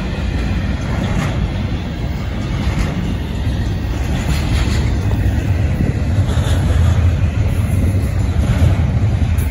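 Union Pacific intermodal freight train's container well cars rolling past: a steady low rumble of wheels on rail, with faint brief clicks now and then.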